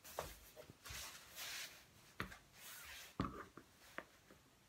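Faint rustling of cloth fabric being moved, folded and smoothed out over a cutting mat, with a few soft taps.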